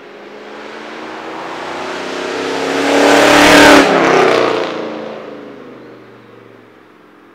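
2006 Mustang GT's 4.6-litre V8 on long-tube headers and straight pipes, with no catalytic converters, passing at speed. The exhaust builds to a loud peak about halfway through, drops in pitch as the car goes by, then fades away.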